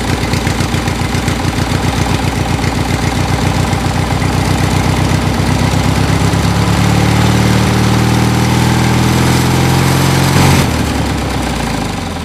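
Tractor engine running with a rapid, even chug at idle. From about six seconds in its pitch rises steadily as it revs up, then the sound cuts off suddenly near the end.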